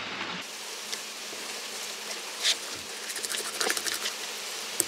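Small clicks and scrapes of a kitchen knife working through a bass fillet to take out the pin bones, over a steady buzzing hiss.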